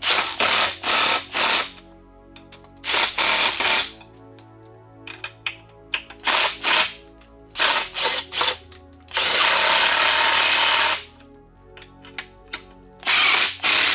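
Cordless 3/8-inch stubby impact wrench hammering bolts down on its low torque setting, in short bursts: several quick ones in the first few seconds, a longer run of about two seconds past the middle, and another starting near the end.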